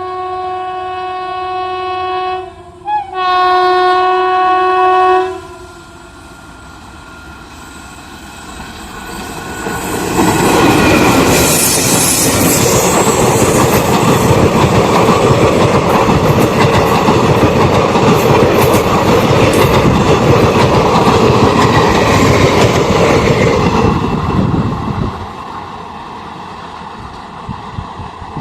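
Indian Railways train horn sounding twice, a long blast then a louder one after a short break, stopping about five seconds in. A train then passes at speed for about fifteen seconds, its wheels clattering over the rail joints, then fades.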